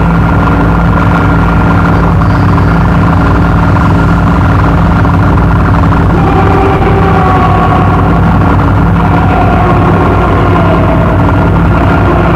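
Power electronics noise track: a loud, dense droning wall of sound over a steady low hum, with wavering mid-pitched tones that slowly drift and slide downward in the second half.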